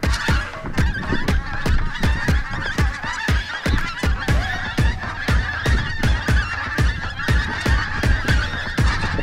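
A large flock of pink-footed geese calling overhead in a dense, continuous chorus. Through it runs a fast series of thumps, about four a second, which are the loudest sound.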